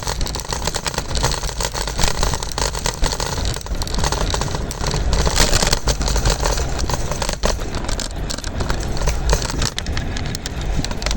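Scooter riding over pavement: a steady rumble and scraping rattle from the wheels and deck, with wind buffeting the microphone.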